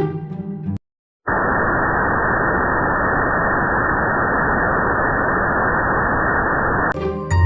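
Steady, unchanging synthetic noise like muffled static, with no highs, lasting about five and a half seconds. It follows a brief burst of music and a moment of silence, and music returns near the end.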